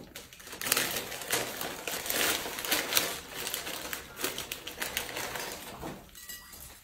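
Plastic instant-noodle packets crinkling and rustling as they are torn open and the dry noodle blocks pulled out, in irregular crackly bursts.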